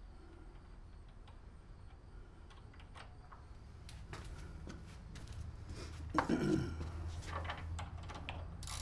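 Light metallic clicks and clinks of a hand wrench and steel bolts and locking nuts as the handle bolts of a snowblower are undone. The clicks are scattered throughout and get denser and louder from about six seconds in.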